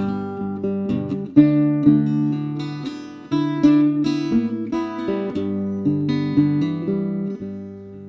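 Acoustic guitar playing, mixing picked single notes that ring and fade with a few strummed chords.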